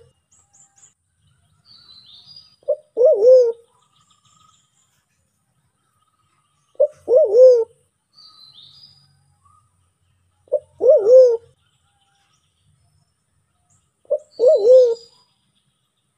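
Sulawesi black pigeon (Turacoena manadensis) calling, a recording used as a hunter's lure: a short clipped note followed at once by a longer low wavering coo, repeated four times about every four seconds. Faint high chirps of small birds come between the calls.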